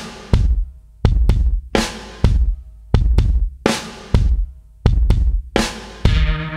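Intro music: a loud drum beat of heavy bass-drum hits with ringing cymbal-like decays, repeating roughly every half to three-quarters of a second. Sustained chords come in about six seconds in.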